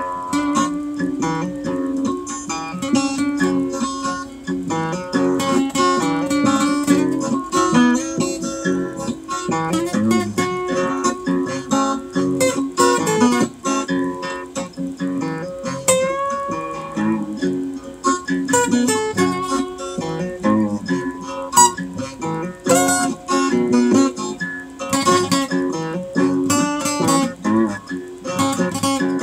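Acoustic guitar playing an instrumental, with picked notes and strummed chords in a continuous run.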